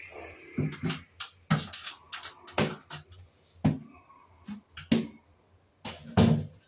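An irregular series of about a dozen short knocks and clatters, some in quick pairs, with the loudest one near the end.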